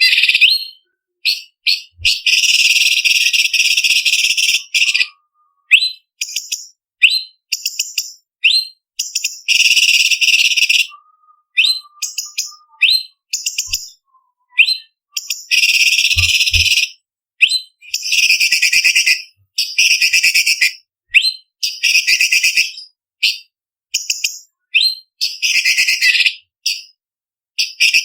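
Orange-bellied leafbird singing: quick runs of short, sharp, high-pitched chirps alternating with longer rattling trills of one to three seconds, with brief silent pauses between phrases.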